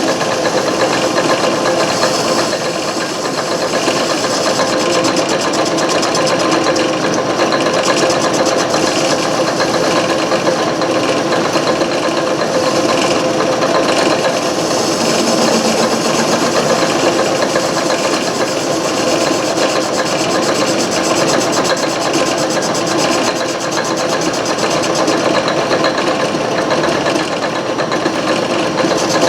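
Antique Garvin metal lathe running steadily, with a constant mechanical whir that holds an even pitch throughout.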